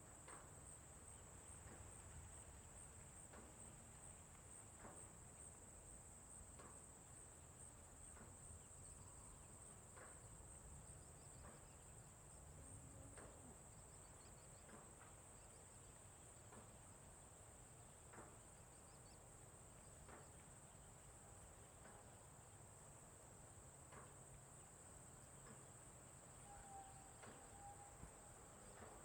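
Faint, steady high-pitched trilling of crickets. Soft ticks come every couple of seconds, and a brief low whistled note sounds near the end.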